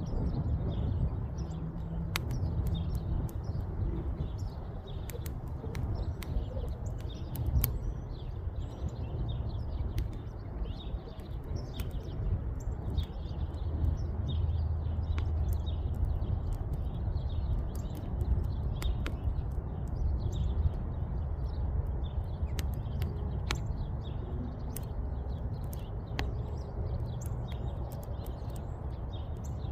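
Wood fire crackling, with sharp pops scattered through, over a steady low rumble; small birds chirp repeatedly in the background.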